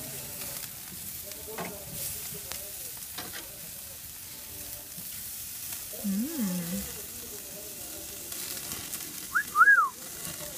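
Chicken sizzling on a grill over glowing charcoal, with a few clicks from metal tongs. There is a short low hum about six seconds in, and near the end a brief whistle that rises and falls, the loudest sound.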